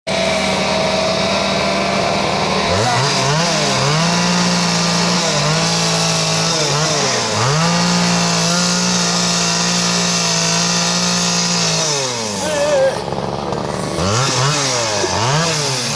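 Two-stroke chainsaw running at high revs while carving wood, its engine pitch dipping and recovering again and again as the chain bites in. The revs drop about twelve seconds in, then pick up with two more dips.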